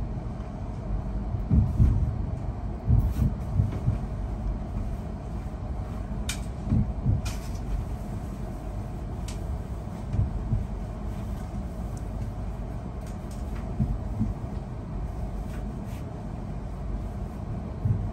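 Steady low rumble of a moving vehicle, with irregular low thumps and a few faint clicks.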